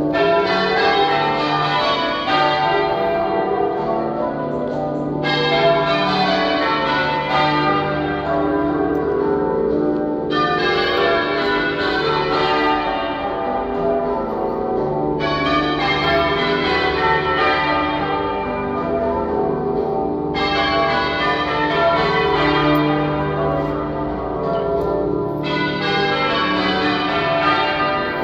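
Church bells change ringing half-muffled, a leather muffle on one side of each clapper, so open strokes alternate with dull muffled ones. This is the traditional echo effect rung for remembrance. The ringing brightens sharply about every five seconds and then dulls again.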